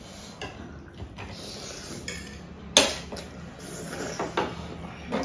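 Fork and spoon clinking and scraping against plates as noodles are wound and eaten, a few light clicks and one sharp clink nearly three seconds in.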